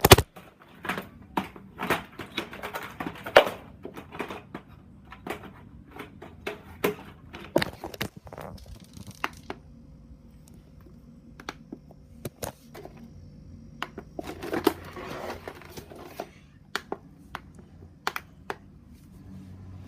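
iRobot Roomba robot vacuum running: irregular clicks and knocks, with short rustling passages, over a faint steady hum.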